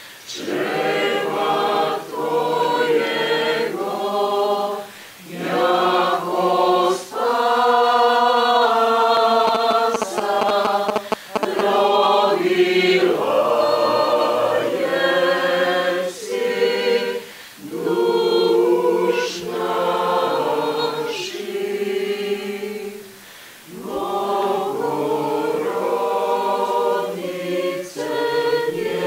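A mixed choir of women's and men's voices singing a cappella, in long phrases broken by brief pauses three times.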